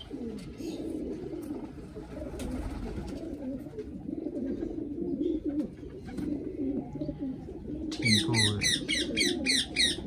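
Domestic pigeons cooing in a low, continuous burble. In the last two seconds a rapid series of high chirps comes in, about five a second.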